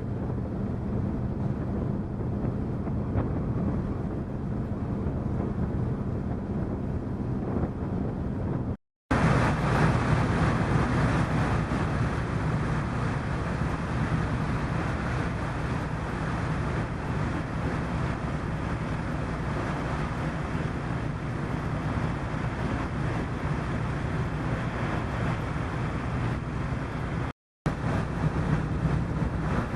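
Car ferry's engines droning steadily with a low hum, mixed with wind rushing over the microphone. The sound cuts out briefly twice.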